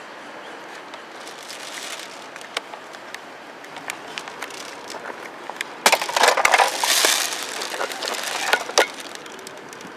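Handling noise: the camera being gripped and moved, with scattered clicks and a louder stretch of rubbing and scraping against the camera body from about six to nine seconds in.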